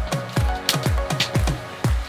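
Background music with a steady beat of deep, pitch-dropping kick drums and crisp hi-hat ticks.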